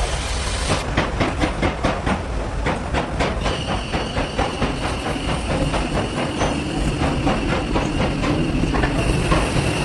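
Machine knocking in a fast, even rhythm of about four to five beats a second, with a steady high-pitched whine joining a few seconds in.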